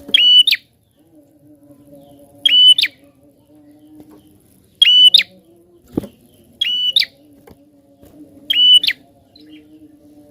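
Prinia (prenjak) calling: five short, sharp trilled calls, about one every two seconds, over a faint steady low hum.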